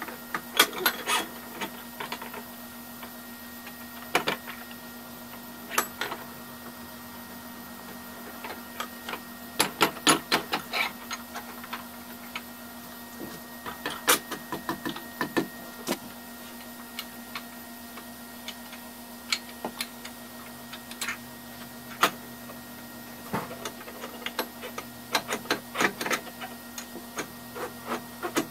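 Scattered clicks and knocks of metal parts being handled and fitted inside a wood lathe's headstock during a spindle and pulley replacement, with a run of quick taps near the end. A steady low hum sounds behind them.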